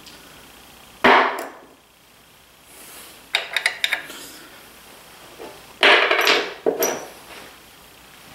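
Knocks and clatter from hand-handling metal parts and tools during disassembly: one loud knock about a second in, a quick run of clicks around three and a half seconds, then another loud clatter of a few knocks around six seconds.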